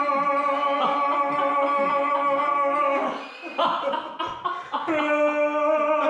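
A man singing long held notes in an exaggerated operatic voice, like vocal warm-up exercises: one steady note held for about three seconds, a short break, then another held note starting about five seconds in.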